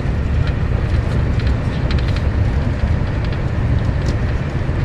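Passenger train running at speed, heard from inside the carriage: a steady low rumble with a few faint clicks scattered through it.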